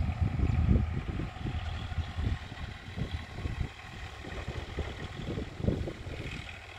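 Massey Ferguson 245 DI tractor's diesel engine running under load as it pulls a disc harrow and levelling plank through a wet field. It comes through as an uneven low rumble that grows fainter toward the end.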